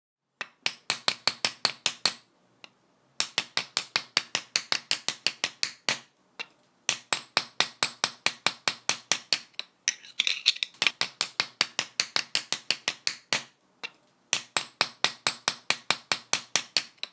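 A tool chipping old glazed wall tiles loose, striking in rapid, evenly spaced taps about six a second. The taps come in runs of two to three seconds with short pauses between.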